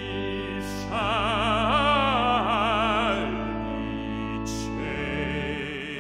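Bass-baritone voice singing with a wide vibrato over sustained pipe organ chords. The organ chord changes near the end.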